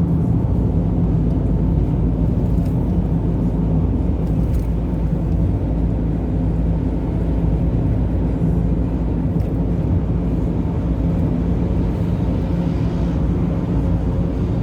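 A car driving along, with steady engine and road noise.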